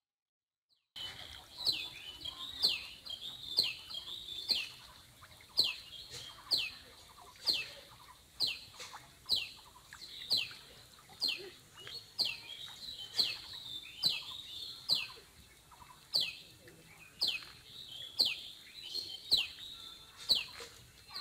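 A bird calling over and over, a short falling whistle repeated about once a second, starting about a second in.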